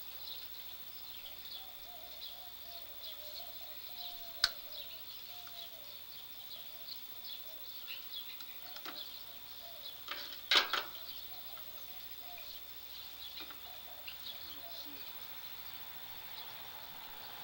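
Outdoor ambience of insects chirring steadily and birds chirping, broken by a sharp click about four seconds in and a louder quick cluster of knocks about ten seconds in.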